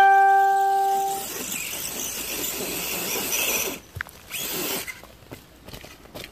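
RC rock bouncer's motor and geared drivetrain, with an RC4WD R3 transmission and transfer case, whining high under load as it climbs a steep dirt slope. A brief steady tone sounds at the start. The whine drops away about four seconds in, leaving scattered light clicks.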